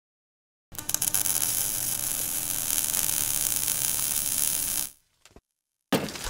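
Steady hissing static with a low mains hum, starting just under a second in and cutting off about five seconds in. A sudden loud sound starts just before the end.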